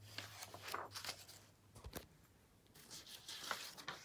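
Page of a picture book being turned by hand: paper rustling and sliding, with a soft knock about two seconds in. A low hum in the background stops at the same moment.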